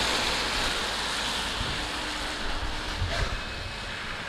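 Steady hiss of rain on a wet street, with a car's tyres swishing on the wet road as it drives off at the start. Wind buffets the microphone in low thumps.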